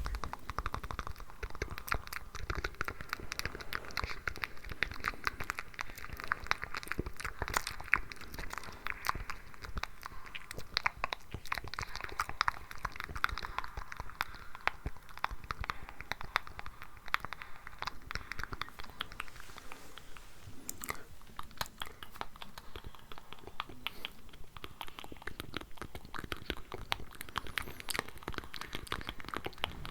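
ASMR mouth sounds recorded close to the microphone: a dense, layered stream of wet clicks and smacks. Over the first two-thirds a hiss of layered, unintelligible whispering runs beneath them, then fades, leaving sparser clicks.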